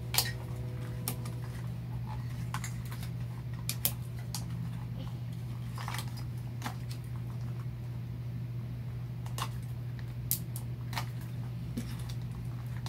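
Scattered light clicks and taps of plastic as Mini Brands capsule balls and their tiny toys are handled, about ten in all, over a steady low hum.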